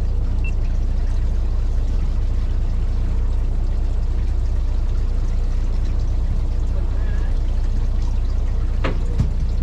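Steady low drone of a fishing boat's engine under a wash of water noise, with one sharp knock near the end.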